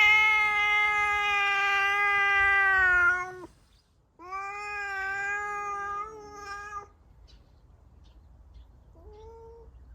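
A cat yowling in long, drawn-out calls: two yowls of about three seconds each, then a short one near the end. It is an angry, territorial yowl at a visiting stray cat.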